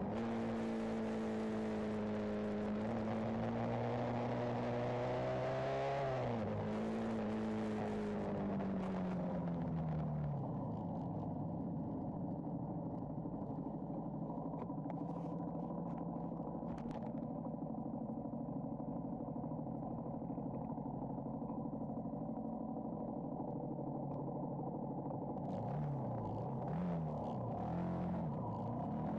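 Benelli TNT 125's single-cylinder engine and exhaust heard onboard while riding: the revs climb, dip briefly about six seconds in, then fall away around ten seconds and hold lower and steady. Near the end the pitch drops and rises several times in quick succession before climbing again.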